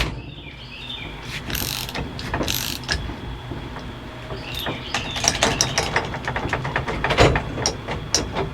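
Irregular metallic clicking and rattling from work on the steering wheel and column hub, building to a rapid run of clicks about five seconds in.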